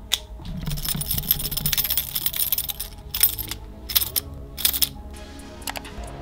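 Lamborghini Huracán STO car key jangling close to a studio microphone for about two seconds, then three sharp separate clicks, recorded as a sample.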